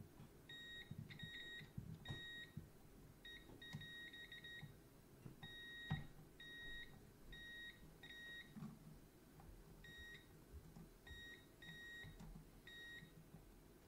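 Digital multimeter on continuity test beeping as its probes are touched to socket pins and board points: a string of short, steady beeps of varying length at irregular intervals. Each beep signals continuity, meaning that solder joint between socket and board is good. Faint taps of the probe tips come between the beeps.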